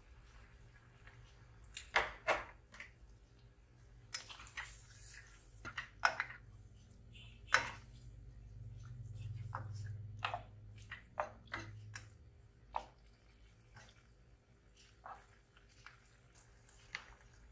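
A spatula stirring chicken pieces in boiling coconut milk in a saucepan, knocking irregularly against the pot, the sharpest knocks about two seconds in, over a low steady hum.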